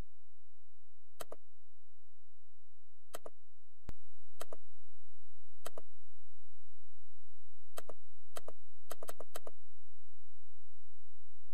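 Computer mouse clicking: single clicks every second or two, then a quick run of four clicks about nine seconds in, over a steady low hum that gets louder about four seconds in.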